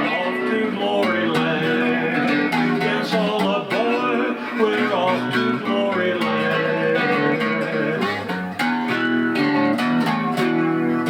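Music: the instrumental close of a gospel song, with guitar playing after the last sung line.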